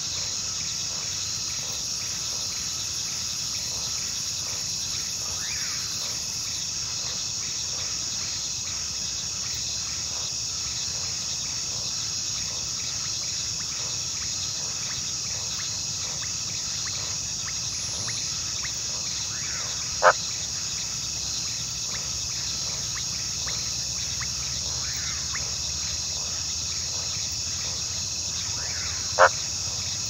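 Steady insect chorus with a fine, even pulsing. Two brief sharp sounds stand out about nine seconds apart in the second half.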